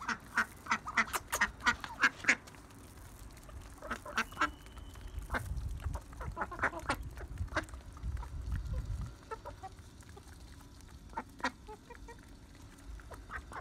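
Ducks quacking in a quick run of short calls in the first couple of seconds, then more sparse calls and taps while the flock pecks scattered grain off concrete.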